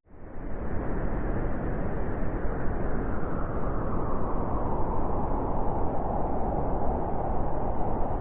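Steady winter wind blowing, a low rushing noise that cuts in suddenly out of a moment of silence and then holds even.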